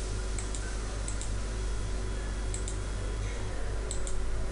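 Computer mouse button clicked about four times, each click a quick double tick of press and release, over a steady low hum. The clicks are the debugger's step button being pressed.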